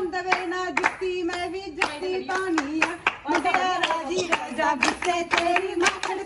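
Women clapping their hands along to a woman's sung Punjabi folk verse for giddha dancing. The claps come about two a second, not quite evenly, over one held, wavering singing voice.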